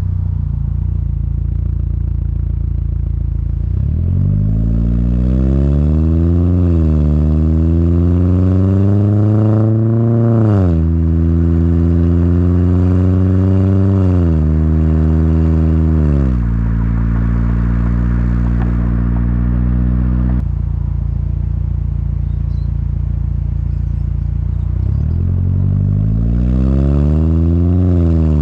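Chevy Cruze 1.4 L turbocharged four-cylinder with a 3-inch turbo-back exhaust, heard from inside the cabin, accelerating hard through the gears. The engine note climbs in pitch and falls back at each upshift, about 6, 10 and 16 seconds in, holds a steady cruise, then pulls up again near the end.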